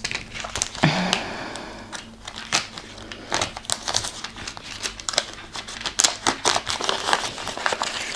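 Packaging crinkling and rustling as it is handled and unwrapped, with many irregular crackles.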